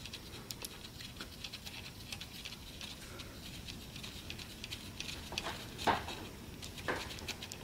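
Gloved hand handling the intake camshaft in a BMW N52 cylinder head: faint clicks and light rubbing of glove on metal, with two louder knocks about six and seven seconds in.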